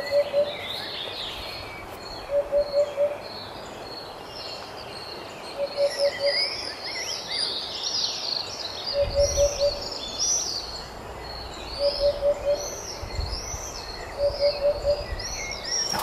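Birds singing: busy high chirping song throughout, with a low hooting call of four quick even notes repeated about every three seconds, the loudest sound.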